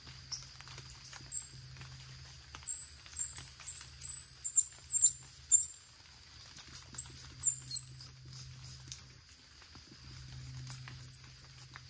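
Hand-held squirrel call blown by mouth, giving runs of short, high, squeaky chirps that slide downward, about four a second, in bursts with brief pauses.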